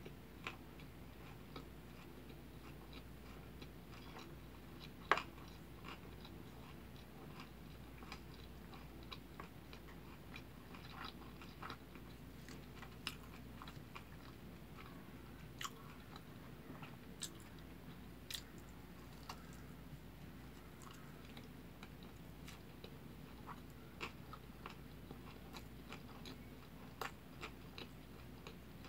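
Close-miked chewing and biting of kimbap, the seaweed-wrapped rice rolls: faint, soft mouth sounds with scattered small clicks, and one sharper click about five seconds in.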